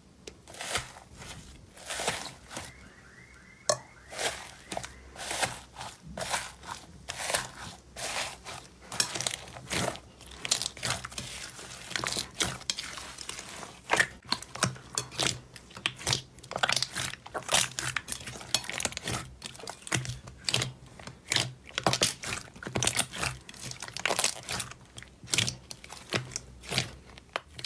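Orange slime with a dried, cracked crust being broken and kneaded by hand: the crust crunches and tears, and the slime gives a dense, irregular run of sticky pops and crackles as it is squeezed and stretched.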